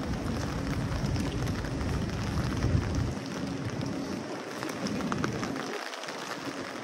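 Rain falling on a wet city street: a steady hiss of drops, with a low rumble underneath that drops away about three seconds in.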